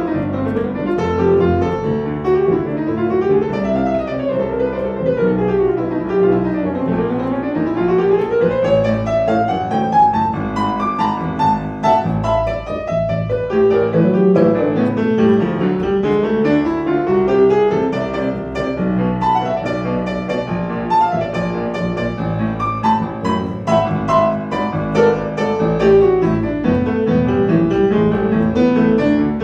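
Kawai grand piano playing a jazz composition: flowing runs that sweep up and down the keyboard over held bass notes.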